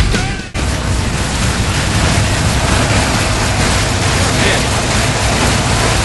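Heavy rock music cuts off about half a second in. It gives way to a car engine running, heard as a loud, steady rushing noise with a deep rumble underneath.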